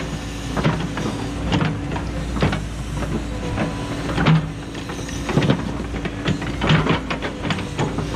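Cat 314E excavator running with a steady engine hum, with irregular metallic clanks and knocks from the machine at work.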